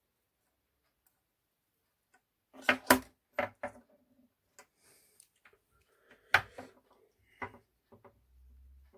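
Sharp clicks and knocks from hands handling a soldering iron and a small plastic XT60 connector on a wooden desk: a near-silent start, then a loud cluster of clicks about two and a half seconds in, another loud click a little past six seconds, and a few lighter ones after it. A faint low hum comes in near the end.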